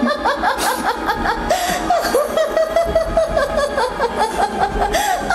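A female voice laughing a long, loud, rhythmic stage cackle, about five "ha" bursts a second without a break. It is the menacing laugh of a yakshi, the child-snatching female ghost of Kerala folklore.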